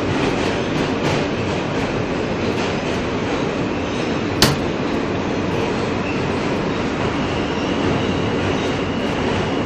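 New York City subway car running between stations, heard from inside the car: a steady rumble and rattle of wheels on track. A single sharp click comes about four and a half seconds in, and a faint high whine enters about six seconds in.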